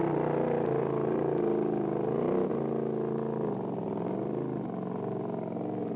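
Motorcycle engine running, its pitch falling and rising again several times as the revs change.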